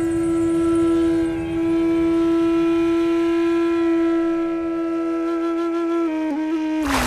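Music: a single long held note that wavers and dips slightly in pitch as it ends. Just before the end it cuts abruptly to the rush of sea surf.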